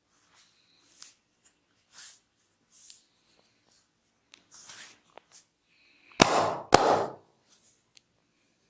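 Hands of a massage moving over skin in soft rubbing strokes, then two sharp, loud strikes about half a second apart, a little past two-thirds of the way through.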